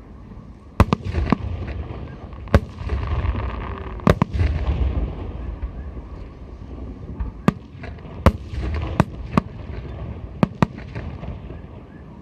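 Aerial fireworks shells bursting overhead: about a dozen sharp bangs at uneven intervals. A crackling rumble trails the bursts, strongest around the middle.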